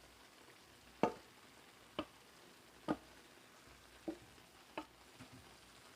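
A utensil clinking sharply against cookware five times, about a second apart, as the pancit bihon is topped and served, over a faint steady hiss.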